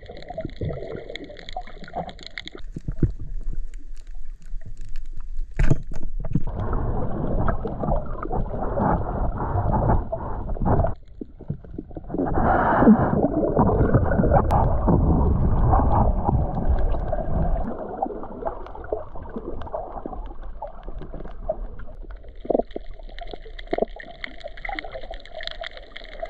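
Muffled underwater water noise around a camera carried by a swimming spearfisher: gurgling and rushing water, loudest in the middle stretch with a brief drop about eleven seconds in. A faint steady hum is heard at the start and again near the end.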